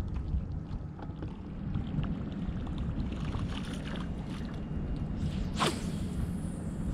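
Breeze rumbling on the microphone aboard a small fishing boat, with faint water sounds and scattered light clicks, and one short sharp swish about five and a half seconds in.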